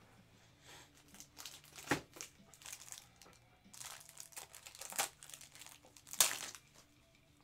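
Plastic packaging crinkling and rustling as trading cards are handled, in irregular bursts with sharper crackles about two, five and six seconds in.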